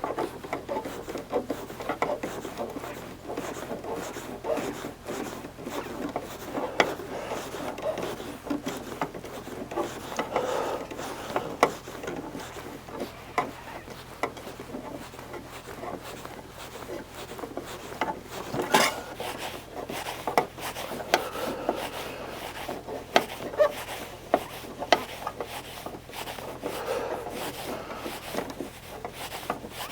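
Paintless dent repair work on a car's sheet-metal quarter panel: irregular rubbing and scraping as the tool works the dent, with scattered light clicks and taps and one sharper knock a little past the middle.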